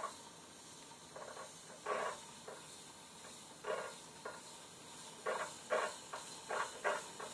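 Spin bike making an odd repeating noise as it turns: short scraping bursts, often in pairs, that recur with the pedal strokes and come more often from about five seconds in.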